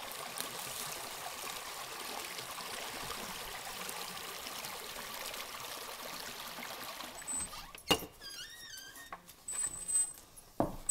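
Shallow rocky brook trickling and gurgling steadily over stones. About eight seconds in, the water sound breaks off, followed by a sharp knock, a brief wavering squeak and a few clicks.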